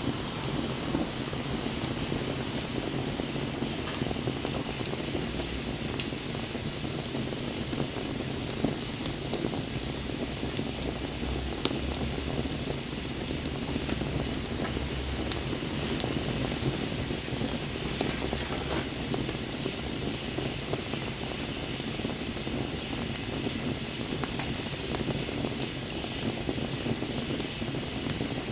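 Wood fire burning, a steady hiss of flames with frequent small crackles and a few louder pops.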